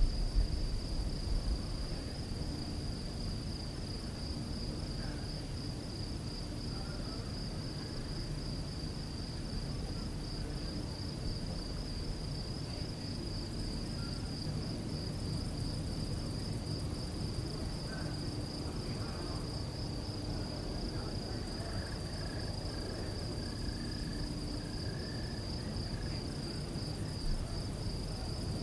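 Crickets singing at night: one steady, finely pulsing high trill, over a low rumble. A few short knocks in the first second and a half, and faint short calls in the background later on.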